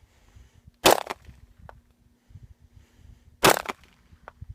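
Two shots from a Glock 22 .40-calibre pistol, fired about two and a half seconds apart.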